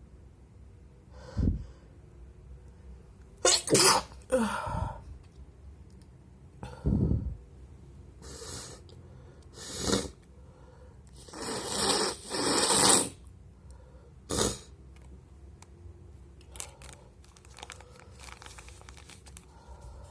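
A person sneezing several times in a row, very wet sneezes, as short sudden bursts at irregular intervals.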